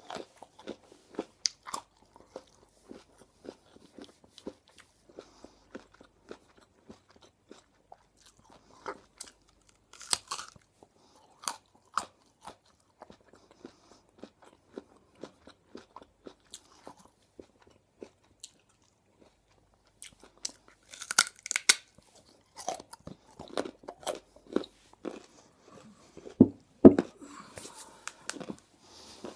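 Raw carrot being bitten and chewed close to a microphone: short, crisp crunches at an uneven pace, with a brief lull about two-thirds of the way through, then denser, louder crunching near the end.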